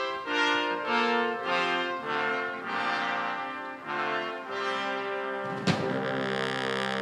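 Brass ensemble of trumpets, French horns, trombone and tuba playing sustained chords that change about every half second, with a cymbal crash from the drum kit near the end.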